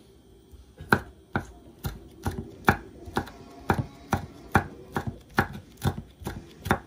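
Chef's knife slicing red chili peppers on a wooden cutting board: a steady run of sharp knocks of the blade against the board, about two a second, starting about a second in.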